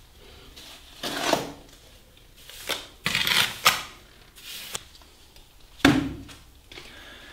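Plastering trowel scooping up wet plaster and working it onto a door reveal: a series of short scrapes with a few sharp clinks.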